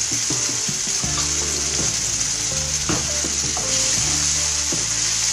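Olive oil sizzling steadily in a frying pan around eggplant slices and cherry tomatoes, with a few sharp clicks of a fork against the pan about three seconds in.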